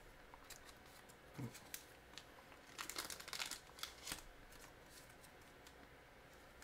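Faint rustling and crinkling of trading cards being handled, with small clicks bunched about three to four seconds in.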